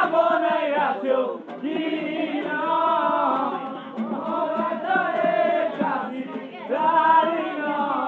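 A group of young men singing together loudly in long, held phrases, with short breaks between lines, to an acoustic guitar.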